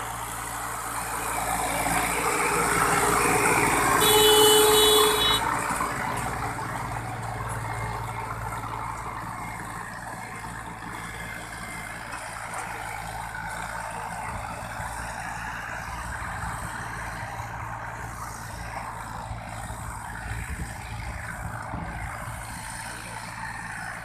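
Diesel tractor engine running steadily while pulling a cultivator through the soil. It grows louder over the first few seconds, and a short high-pitched tone sounds about four seconds in.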